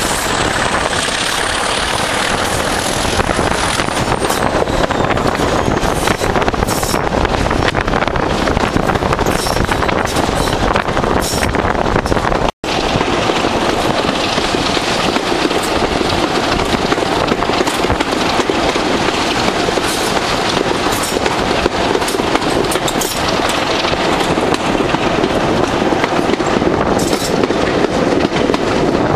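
A Class 37 and a Class 26 diesel locomotive working hard together at the head of a train, heard from a coach window: steady engine thrash mixed with the wheels clicking over rail joints. The sound drops out for an instant about halfway through.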